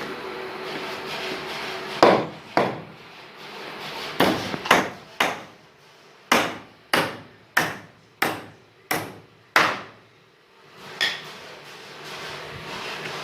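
A hammer striking wood about a dozen times, in short runs of blows roughly half a second to a second apart, each with a brief ring-out.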